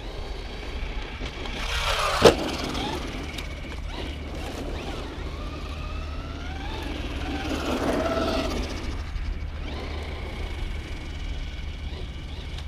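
Traxxas Rustler 4x4 RC truck's electric motor whining, its pitch rising and falling as the truck speeds up and slows, with one sharp knock about two seconds in.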